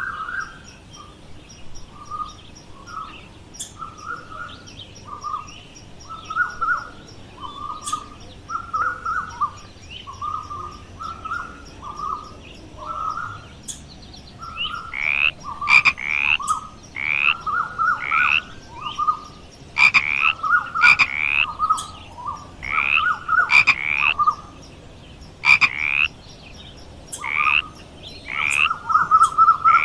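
Animal calls: a steady run of short repeated calls, about two a second, joined about halfway through by louder calls that rise in pitch.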